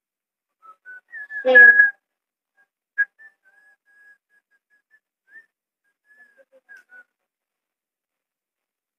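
A person whistling a short tune: a string of thin, high notes at about one pitch with small slides, for about six seconds. A brief loud voice sound cuts in about a second and a half in.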